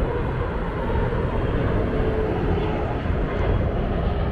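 Jet airliner engines heard from nearby, a loud, steady rumble with a faint whine that drifts slightly in pitch.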